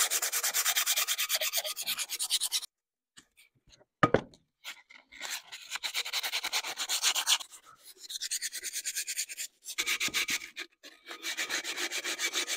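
Sheet of 80-grit sandpaper rubbed by hand over an old terracotta plant pot in rapid back-and-forth strokes, in several bouts with short pauses. A single knock about four seconds in.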